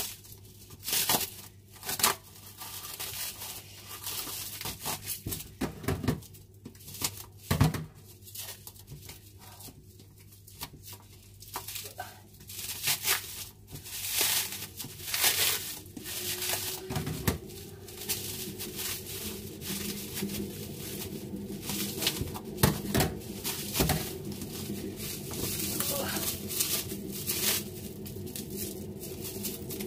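Plastic food wrapping crinkling and tearing as it is cut open with scissors, in many short, sharp crackles and snips.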